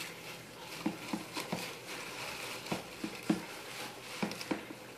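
Wood-shaving hamster bedding being stirred, a faint rustle broken by a string of soft, irregular taps and clicks.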